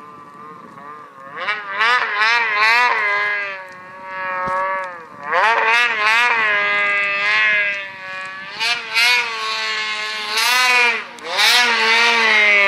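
Snowmobile engine revving up and down repeatedly as the sled ploughs through deep powder snow, its pitch rising and falling with the throttle. It is softer for the first second or so, then comes in several loud surges.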